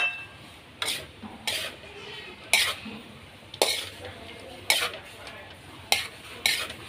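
Metal spatula scraping and knocking against a metal wok as fried rice and pork are stirred, about seven strokes at uneven intervals of roughly a second.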